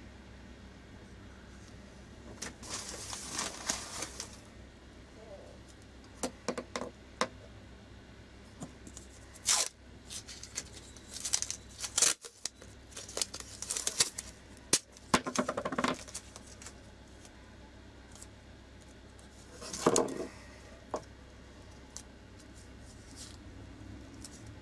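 Adhesive packing tape pulled off the roll with several short rasping rips, torn off and pressed down while wrapping a knife handle to seal its gaps for resin.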